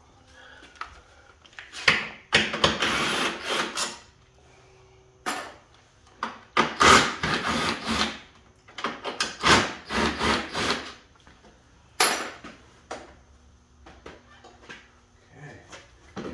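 Cordless power tool run in four bursts of one to two seconds each, backing out bolts during an engine removal.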